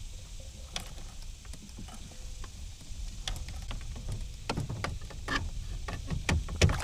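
Lake water lapping and dripping against the side of a kayak, with scattered small clicks and knocks that come more often in the second half, over a low steady rumble.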